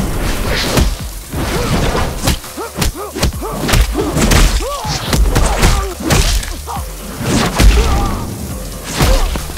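Dubbed fight sound effects: a rapid run of punch and kick impacts with whooshes of swinging limbs, the hardest hit coming near the end. Beneath them runs a hiss of spraying water.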